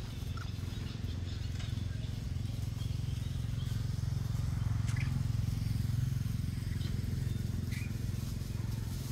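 Outdoor ambience: a steady low rumble, with a few faint short high chirps near the start, about midway and near the end.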